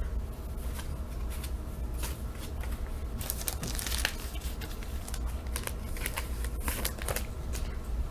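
Wax-paper pack wrappers and baseball cards being handled: crinkling and rustling in scattered short bursts, with small clicks of cards against each other.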